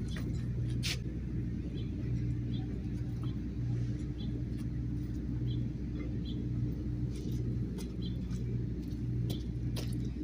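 Steady low mechanical hum that pulses unevenly, with a faint held tone above it. Light clicks and faint short high chirps are scattered through it.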